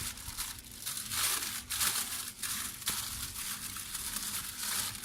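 Plastic packaging crinkling and rustling as it is handled, in an uneven run of scratchy crackles.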